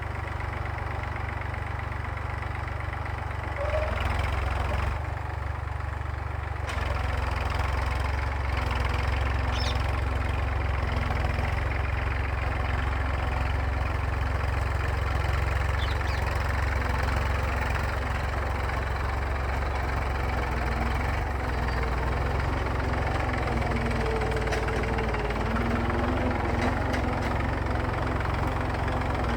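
Massey Ferguson tractor's diesel engine running steadily while ploughing, with a deep, even hum that gets a little louder a few seconds in.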